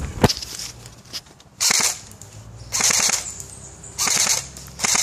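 Airsoft rifle firing four short bursts of rapid fire, each under a second long and about a second apart.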